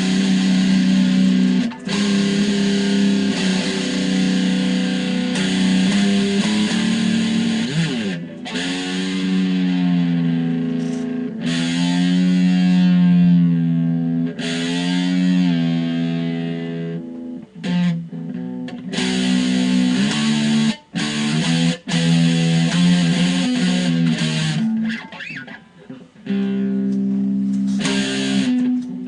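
Distorted electric guitar, a BC Rich Skull Warlock, played solo: long held notes that bend and waver in pitch, broken off sharply several times.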